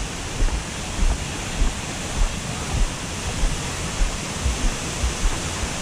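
Steady rush of falling water from Smith Falls. Regular low thumps come about twice a second, in step with walking along the wooden boardwalk.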